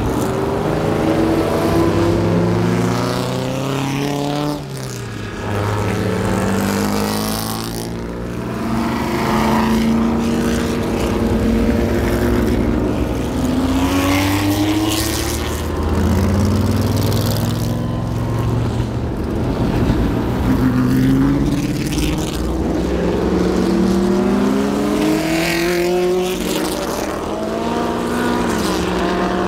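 Vintage race car engines accelerating past and away, one car after another, each engine's pitch climbing and then dropping at the gear changes.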